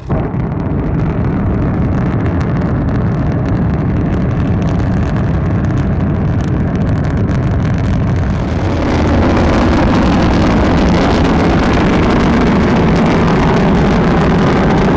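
Launch of a Long March 2F rocket carrying the Shenzhou-11 spacecraft: loud, continuous rocket-engine noise, heaviest in the low end, that starts abruptly and gets louder about nine seconds in.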